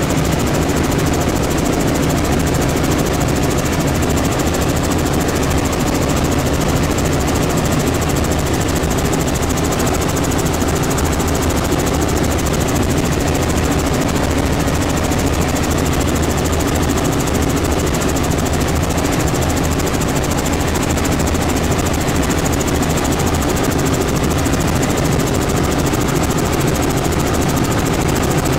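Robinson R44 Astro helicopter in cruising flight, heard from inside the cabin: a steady, dense drone of the rotor and the six-cylinder piston engine, unchanging throughout.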